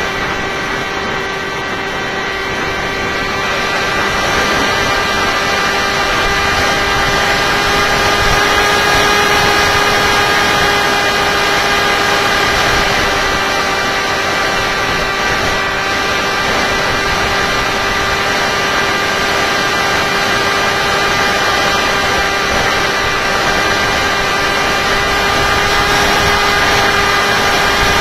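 Electric motor and propeller of a Tek Sumo flying wing in flight, heard from its onboard camera: a steady whine at a nearly constant pitch over a rush of air noise.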